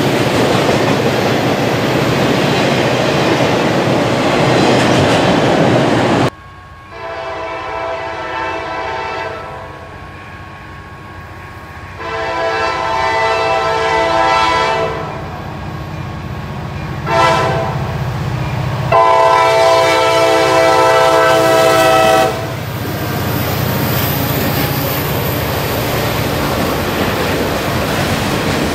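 Autorack freight cars rolling past close by with a steady rumble; then, after a cut, the lead SD50-2 locomotive's air horn sounding the grade-crossing signal, two long blasts, a short one and a final long one, for an approaching dirt-road crossing. The horn gives way to the train's cars rumbling across the crossing.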